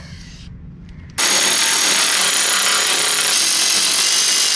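Cordless electric ratchet running continuously on a bolt, a loud steady motor-and-gear whine that starts abruptly about a second in.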